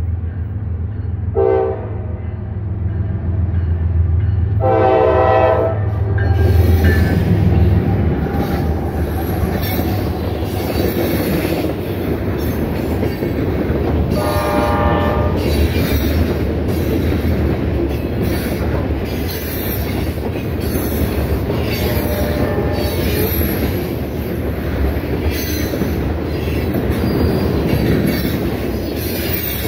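Freight train's diesel locomotives sounding the horn as they reach a grade crossing: a short blast, then a longer one, the closing blasts of the crossing signal, over a low engine rumble. Then a long string of covered hopper cars rolls past with a steady clatter and wheel clicks, and a fainter horn blast sounds about halfway through.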